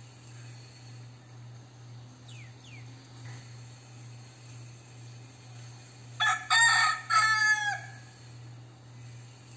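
Crossbred gamecock rooster crowing once, about six seconds in: a loud cock-a-doodle-doo of about two seconds in three quick parts, the last note held and then falling away.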